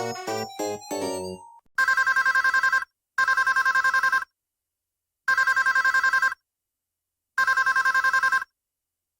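PH-S2000M mobile phone ringtones. A short melody ends on a held note, then a telephone-style ring sounds in two pairs of rings. Each ring lasts about a second and is a fast warble between two tones.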